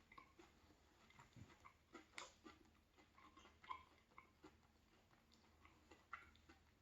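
Quiet chewing of a Milka Oreo Brownie chocolate bar with cookie pieces: faint, irregular crunches and clicks.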